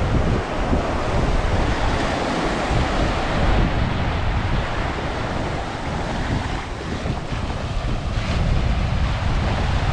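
Wind blowing on the microphone with a low, steady rumble, over ocean surf washing onto a beach.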